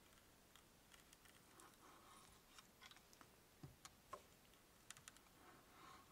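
Faint, scattered clicks and small scrapes of steel end-cutting pincers gripping and levering old tacks out of an old wooden chair rail.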